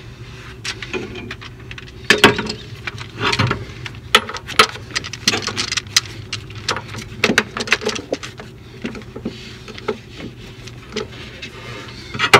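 Irregular metal clinks and knocks of a socket on a long-handled wrench being handled and fitted onto a nut on a steel frame, over a low steady hum.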